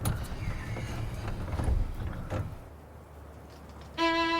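Low rumbling background noise, then about four seconds in a violin starts a single held bowed note.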